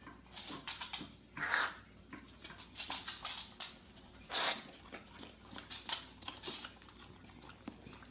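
Aerosol whipped cream can giving several short hissing squirts, with a dog licking the cream from the nozzle between them.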